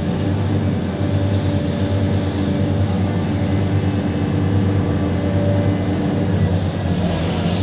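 Large diesel engine of a Hitachi 870 hydraulic excavator running steadily as a low, even drone.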